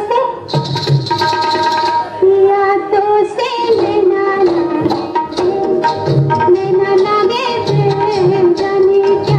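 Hindi film song: a woman's voice sings a long, ornamented melody over tabla, with drum strokes falling now and then beneath it.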